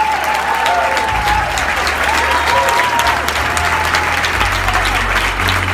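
A congregation applauding, the clapping dense and steady, with voices calling out over it and a low bass hum underneath.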